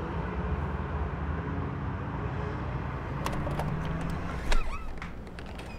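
Steady road traffic. A few light taps come a little past three seconds, and a louder sharp clatter with a short squeak about four and a half seconds in.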